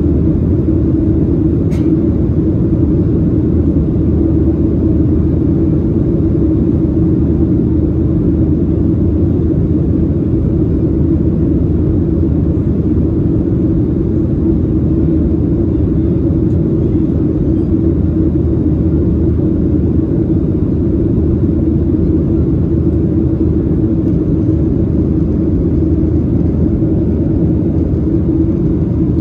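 Steady engine and airflow drone heard inside the cabin of a Boeing 737-800 in flight, from its CFM56-7B turbofans, with a constant low hum underneath.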